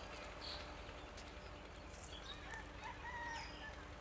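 Birds calling in the open: scattered short high chirps, with a couple of longer held calls in the second half, over a faint steady outdoor background.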